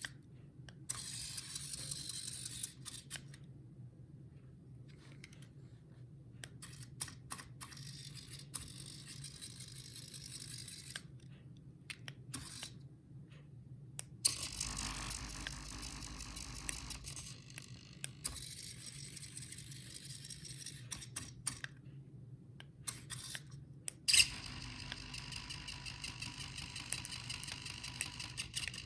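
Small electric motors of a remote-controlled airsoft turret whirring in short runs that start and stop, with clicks, over a steady low hum. About three-quarters through, a sharp click is followed by a steadier whine.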